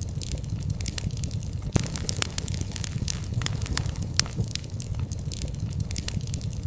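Wood fire burning, with frequent irregular crackles and pops over a steady low rumble of the flames.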